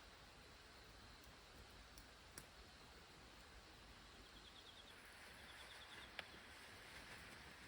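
Near silence: faint outdoor hiss with a few soft, isolated clicks and, about halfway through, two short faint trills of rapid high ticks.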